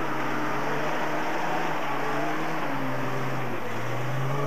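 A 4x4's engine running under load as it drives through a muddy stream crossing. Its note dips about three and a half seconds in and then rises again.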